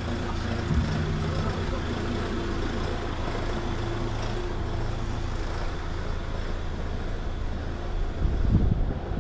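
A large road vehicle's engine running steadily in a city street, a low hum over street noise, with a louder low rumble about eight seconds in.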